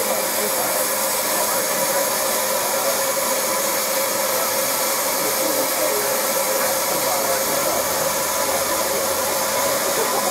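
Saddle-tank steam locomotive Rocket letting off steam from the top of its boiler: a steady, unbroken hiss with a faint whistling tone in it.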